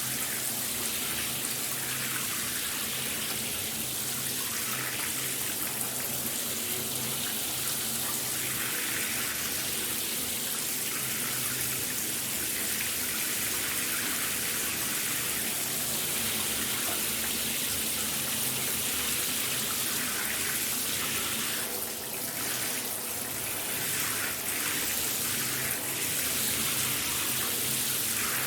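Shower running, a steady spray of water hissing down with small shifts in the splash now and then.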